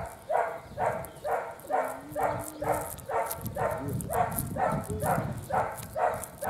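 A dog barking repeatedly in a steady, even rhythm, about two to three barks a second.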